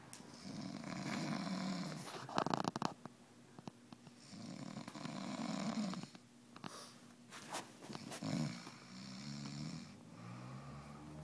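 A sleeping man snoring heavily: two long snores a few seconds apart with a short, sharp snort between them, then shorter snoring breaths near the end.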